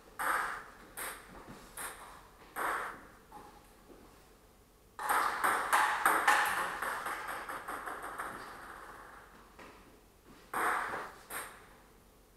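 Table tennis ball being hit back and forth in a rally: sharp clicks off the paddles and the table, a few spaced strokes at first, then a quicker, louder run of clicks about five seconds in that dies away, and two more strokes near the end.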